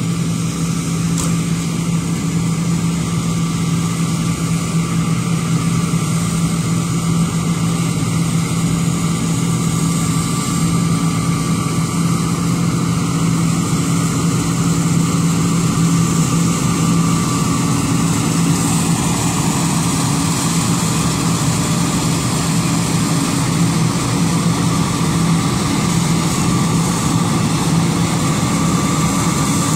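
Combine harvester running steadily at work, its engine and threshing machinery giving a constant low drone.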